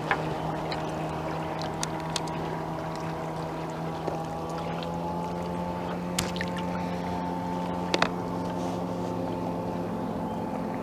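Motorboat engine running steadily on the river, its pitch creeping up slightly after about four seconds. A few short, sharp clicks sound over it.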